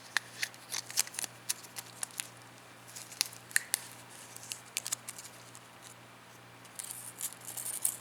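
Hands handling an AR-15 bolt and its small steel gas rings: scattered light metallic clicks and ticks, with a short crinkle near the end.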